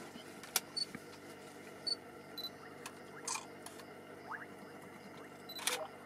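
Camera shutter clicks: single shots fired a second or so apart, about five in all, over a faint steady background.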